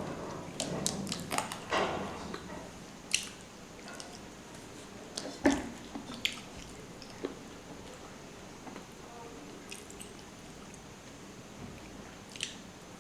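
A person chewing a mouthful of rice and fish curry, with wet, sticky mouth noises and clicks, busiest in the first couple of seconds. Then only scattered single clicks, the sharpest about five and a half seconds in.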